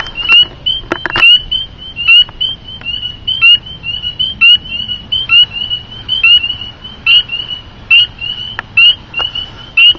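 Spring peepers calling: one close frog gives a loud, short, high peep that slides upward, about once a second, over a continuous chorus of other peepers' peeps.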